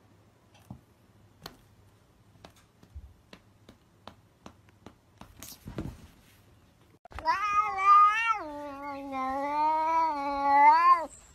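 Cat's long, drawn-out yowl, about four seconds, starting just past halfway: higher at first, then dropping lower and held before it cuts off. Before it, only faint scattered taps.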